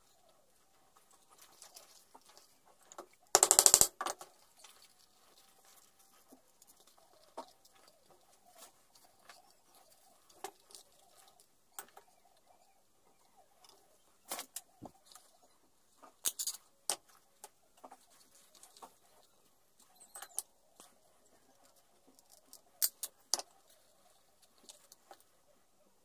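Small clicks, taps and rustles of hands working leather pieces and loose metal rivets on a wooden workbench, scattered and irregular. About three and a half seconds in comes a loud, rattling clatter lasting about half a second.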